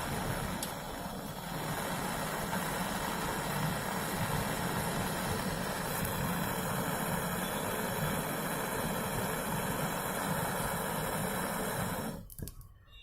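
Refrigeration compressor running steadily with a loud rushing hiss as it drives the cooling coil flush, cutting off suddenly near the end.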